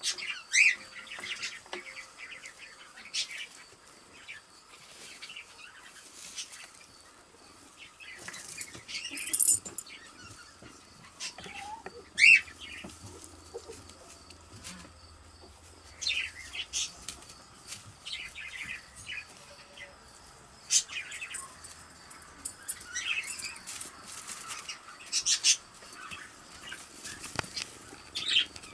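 Wood-shaving bedding rustling and crackling in irregular bursts as kittens tussle and roll in it.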